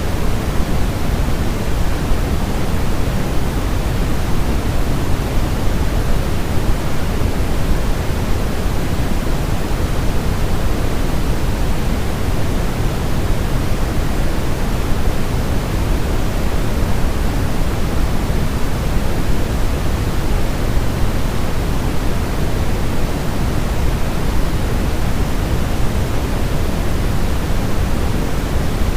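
Steady, unchanging white noise, heavier in the low end than the highs, made to imitate the sound of the womb and soothe a crying baby.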